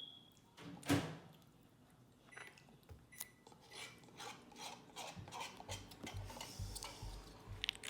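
Light clinks and knocks of kitchen utensils against a bottle, with one sharper knock about a second in, as yeast is mixed into a bottle of orange juice.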